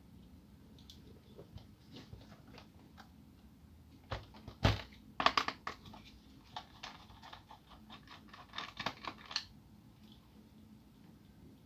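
Clicks and taps of hand tools and parts against a laptop's plastic case as it is taken apart, with one sharp knock a little over four seconds in, followed by a quick run of clicks and another cluster of clicks near the end.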